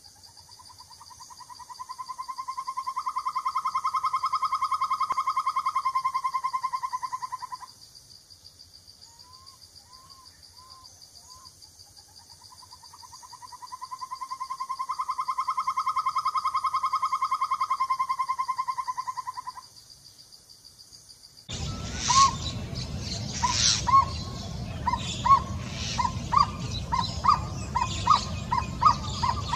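Asian barred owlet calling: two long trills of rapid notes, each about seven seconds long and swelling in loudness, with four short notes between them. About 21 seconds in, a different recording starts with background hiss and a few clicks, and the owlet gives a quickening series of short notes.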